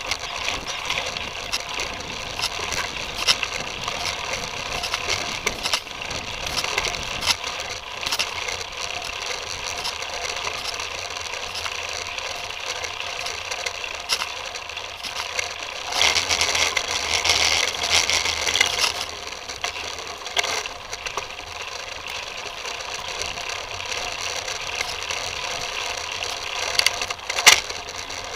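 Titus FTM mountain bike ridden over a forest dirt trail, heard from a camera mounted on the frame: steady tyre noise on the ground with the bike rattling and many small clicks and knocks. A louder, rougher stretch comes about two-thirds through, and a sharp knock near the end.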